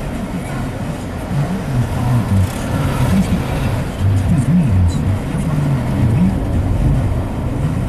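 Car interior noise while driving slowly: a low engine and road rumble whose pitch keeps rising and falling as the speed changes.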